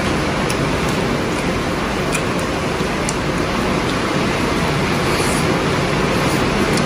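Heavy rain falling steadily, a loud, even hiss with a few faint clicks over it.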